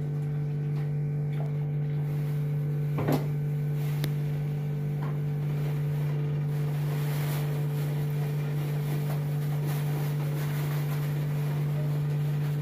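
A steady low electrical or mechanical hum, with a short knock about three seconds in and a few faint clicks after it.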